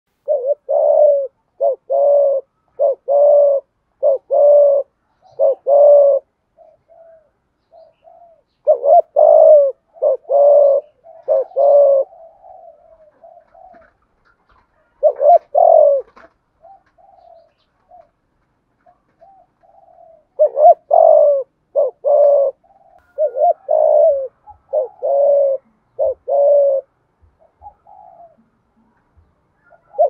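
Caged decoy spotted dove cooing its calling song to lure wild doves: four bursts of short, low coos in quick succession, with pauses between them and softer notes in the gaps.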